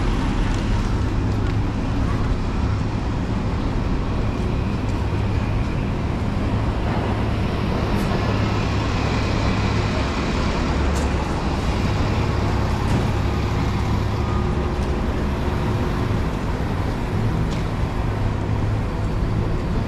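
Busy city street traffic: a steady low engine rumble from passing and idling cars, buses and trucks, with a few brief sharp clicks.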